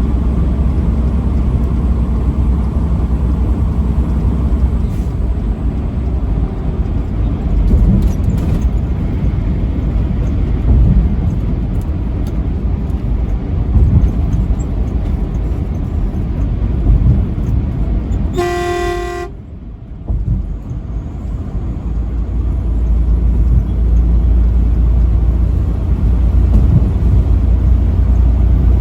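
Steady low road rumble of a vehicle driving on a highway, with one truck horn blast lasting about a second about two-thirds of the way through. The rumble drops briefly just after the horn.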